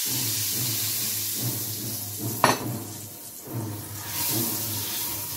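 Water poured into hot melted butter and toasted cornmeal in a frying pan, sizzling as a wooden spoon stirs it. The sizzle eases about halfway through and picks up again near the end, with one sharp knock about two and a half seconds in.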